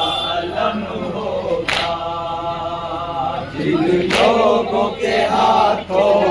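Men's group chanting a Muharram noha in unison, loud and steady, with a sharp accent about every two and a half seconds.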